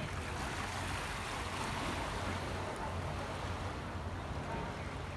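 Ocean surf washing over a rocky shore as a steady wash, with wind rumbling on the microphone.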